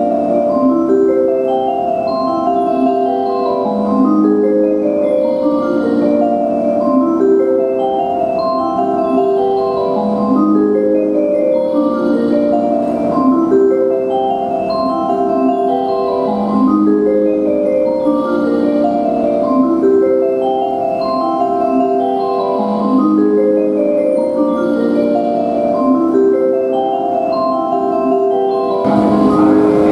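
Kanazawa Station platform train-approach melody playing, a short phrase repeated about every six seconds. The noise of the arriving train swells in near the end.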